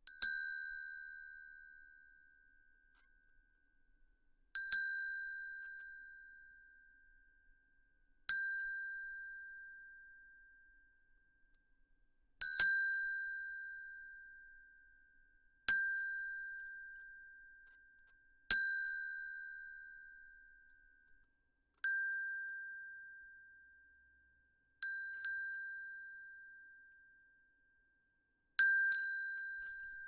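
A single small bell struck nine times, about every three to four seconds, always at the same pitch. Each ring fades over about two seconds, and a few of the strikes land as quick double strokes.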